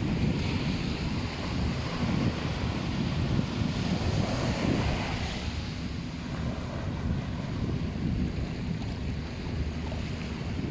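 Wind buffeting the microphone over the wash of surf on a beach. A wave's hiss swells in the first half and then eases off.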